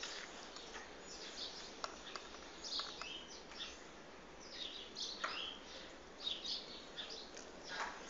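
Bird chirps: irregular clusters of short, high, quickly falling calls, with a few sharp clicks between them.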